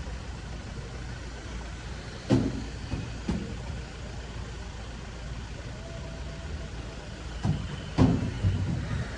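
Steady low rumble of motor traffic, with a few short heavy thumps, two near the start and a cluster near the end.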